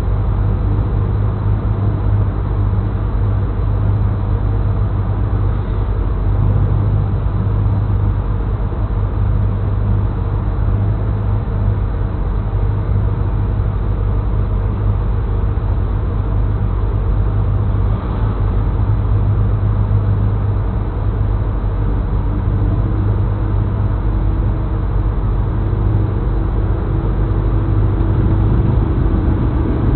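A car engine idles steadily with a low hum, heard from inside the cabin. During the last several seconds a second, higher engine tone joins in.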